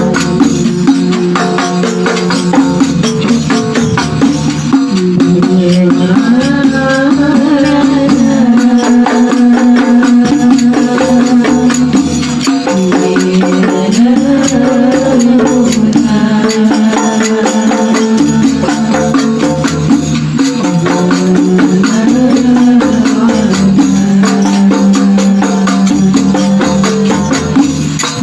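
Sholawat devotional music: a sung melody over frame drums beating a steady, dense rhythm.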